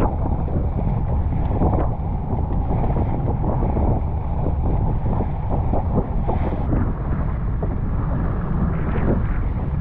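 Wind buffeting the microphone over the steady drone of an outboard motor and the hull of a small open fishing boat slapping and hissing through choppy waves at speed.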